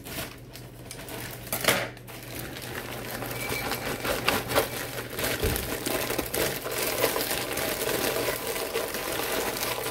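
Plastic bag of shredded hash browns crinkling as it is shaken and squeezed out, the shreds falling into a ceramic slow-cooker crock. A sharper crackle comes a little under two seconds in.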